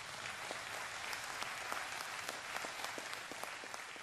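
Audience applauding, a dense patter of many hands clapping that eases off a little near the end.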